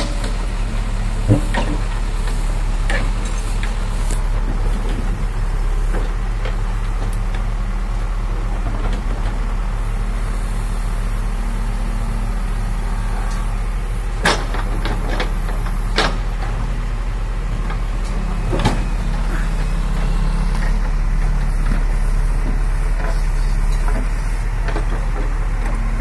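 JCB backhoe loader's diesel engine running steadily while the backhoe arm digs stony soil, swelling a little under load near the end. A few sharp knocks stand out along the way.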